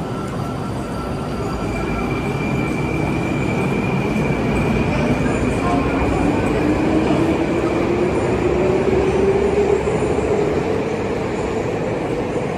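Moscow Metro train running through the station: a steady rumble with a motor whine that rises slowly in pitch as the train accelerates. It grows louder toward the middle and eases a little near the end.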